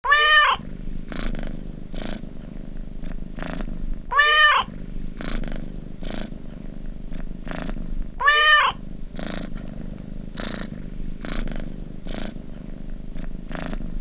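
Cat meowing alarm sound: a domestic cat's meow repeated on a loop about every four seconds, three times, over a steady low purr.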